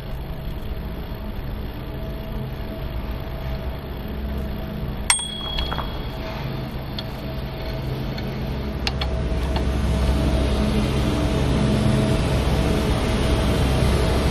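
Rumble and rattle of a bicycle riding over brick paving, with wind and street traffic noise growing louder after about nine seconds. A single sharp metallic ding, like a bicycle bell, rings briefly about five seconds in.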